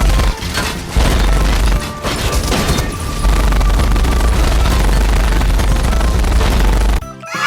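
Loud action-style soundtrack of rapid gunfire-like bangs and booms over a heavy bass, broken by brief gaps and cutting off near the end.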